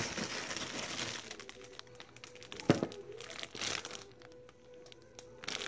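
Paper and crinkly plastic packaging rustling as they are handled, a sealed plastic wrapper around a rolled microfiber yoga towel among them. One sharp knock comes a little before halfway.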